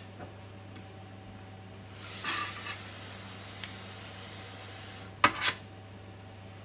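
Carving knife and fork working on a stainless steel platter: a scraping rasp about two seconds in and a sharp double clank about five seconds in, over a steady low hum.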